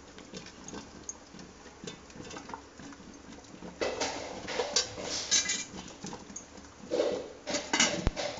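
Scraping and clatter of rice being served from an electric rice cooker's pot onto a plate, louder in bursts about four seconds in and again near the end.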